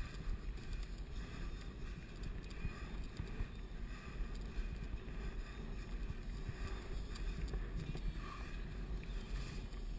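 Mountain bike rolling over rough asphalt: a steady low rumble from the tyres, with wind noise on the microphone and small knocks and rattles from the bike. There is one sharp knock right at the start.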